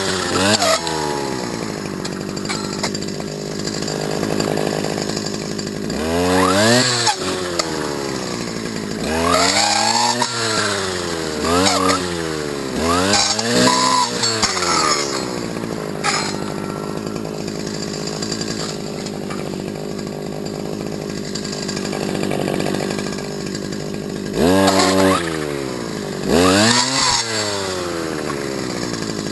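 STIHL FS250 brush cutter's two-stroke engine idling and being revved in short throttle blips, about six times, each a quick rise and fall in pitch, settling back to a steady idle between them, with a long idle stretch in the middle.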